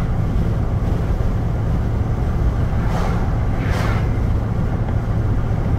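Steady drone of a truck driving on the highway, heard from inside the cab, with tyre and wind noise rushing in through the open driver's window.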